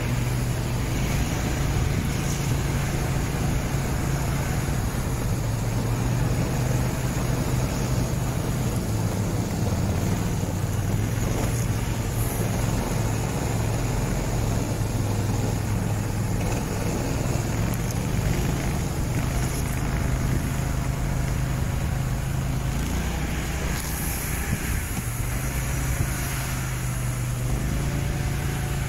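Engine of a motorized towing dog (tracked snow tug) running steadily as it pulls through deep snow, its note shifting briefly a few seconds before the end.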